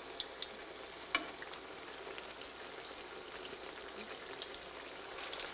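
Eggplant slices shallow-frying in oil in a skillet: a soft, steady sizzle dotted with small pops and crackles, with one sharper click about a second in.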